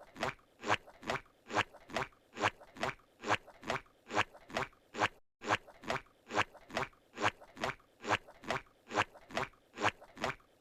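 Squidward's walking sound effect from SpongeBob SquarePants: looped cartoon footsteps with a squishy, suction-like squeak, in a quick, even rhythm of about three steps a second.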